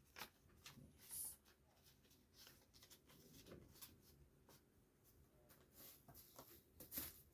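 Faint rustling and soft clicks of paper being handled: red envelopes and banknotes.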